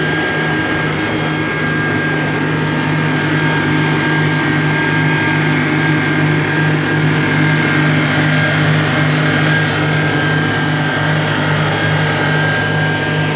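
Yamaha VX110 WaveRunner's four-cylinder four-stroke engine running steadily under throttle while tied up at the ramp, in a load test after its clogged exhaust-cooling passages were cleaned out, running well with no overheating.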